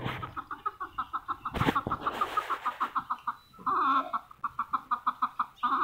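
Chicken clucking in a quick, steady run of short clucks, about eight a second, broken by two longer, louder squawks, one near the middle and one near the end. A single sharp knock sounds about a second and a half in.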